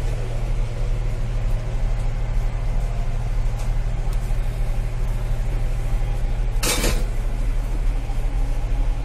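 Steady low rumble and hum of a Duronto Express train coach, heard from inside its toilet compartment, with one short sharp burst of noise about seven seconds in.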